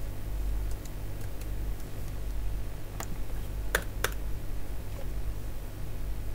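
A few scattered computer keyboard keystrokes, the sharpest about three and four seconds in, over a steady low hum.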